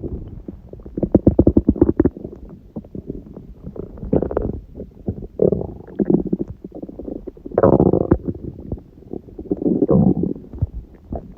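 A person's stomach growling and gurgling in a string of separate bursts, some in quick bubbling pulses, the loudest about eight seconds in. It is digesting a large udon meal, which its owner puts down to eating gluten after a long break.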